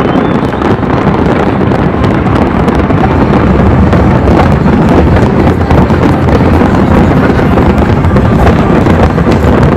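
A large aerial fireworks display: a dense, continuous barrage of shells bursting, a heavy low rumble with many sharp cracks and crackles packed together and no gaps.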